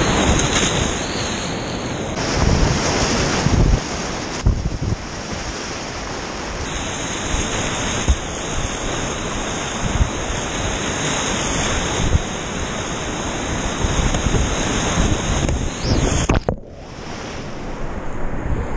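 White-water rapids rushing and churning around a kayak, with wind buffeting the camera microphone and scattered splashes and knocks from paddle strokes. The rushing drops out sharply for a moment about sixteen seconds in.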